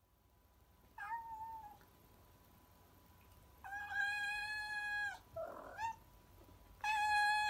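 Domestic cat meowing: a short meow about a second in, then two long, level meows, with a short noisy sound between them. The last meow starts near the end.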